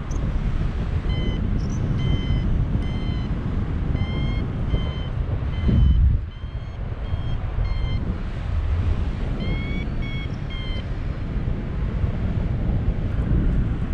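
Paragliding variometer beeping in short repeated tones, about two to three a second, with a short pause and then slightly higher beeps near the end, a climb tone that signals the glider is rising in lift. Steady wind noise on the microphone runs underneath, with a stronger gust about six seconds in as the loudest moment.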